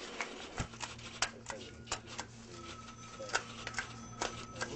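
Irregular sharp clicks and taps, a few a second, over a steady low electrical hum.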